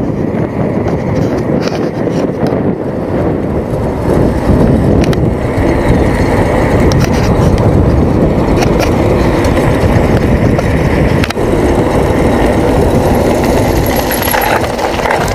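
Wind buffeting the microphone of a bicycle speeding down a paved hill road, with the rumble of the tyres and small knocks and rattles from bumps.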